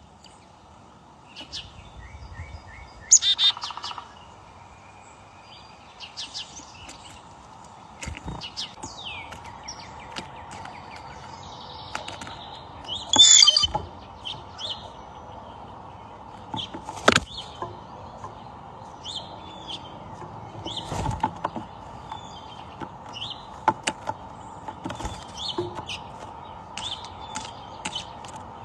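Small birds chirping and calling: many short, high chirps and brief trills scattered through, some louder bursts among them, over a faint steady hum.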